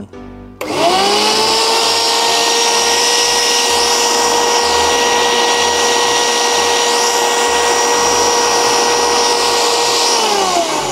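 Euromill compact electric grain mill with its 1 kW, 19,000 rpm motor and cutting blade starting up. It spins up within about a second to a loud, steady high whine, and near the end its pitch falls as it begins to wind down.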